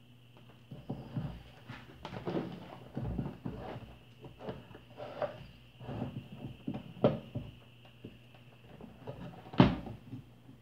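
Irregular small knocks, taps and rustles of hands handling a fan stator's plastic terminal block, its wires and a soldering iron, with the sharpest knock near the end, over a steady faint hum and a thin high whine.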